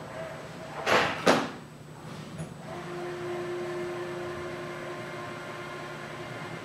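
Two sharp clunks close together about a second in, then a steady hum from a collaborative robot arm's joint drives as the arm swings between the parts bins and the bench.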